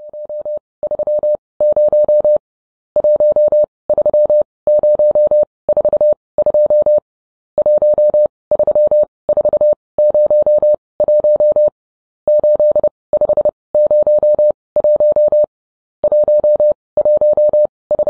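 A single steady electronic tone keyed on and off in short and long beeps with irregular gaps, in the manner of Morse code telegraph signalling.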